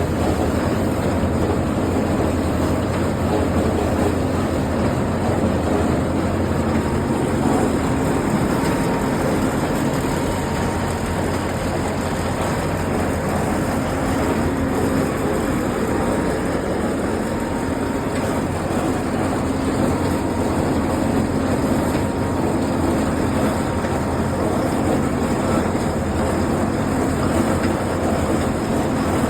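Road roller's engine running steadily, loud and even, without any change in speed.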